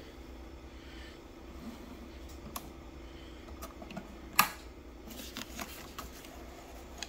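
Light clicks and rustling of handling at the sewing machine as the sewn Sunbrella strip is pulled out from under the presser foot, with one sharper click about four and a half seconds in. The machine itself is not running.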